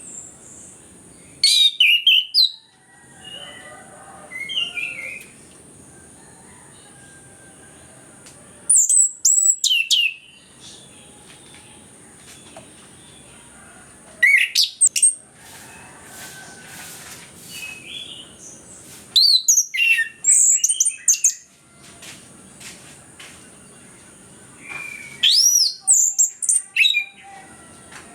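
Orange-headed thrush (anis kembang) singing in loud bursts: five phrases of high, quick whistles and sliding notes, each a second or two long and spaced several seconds apart, with softer notes between them.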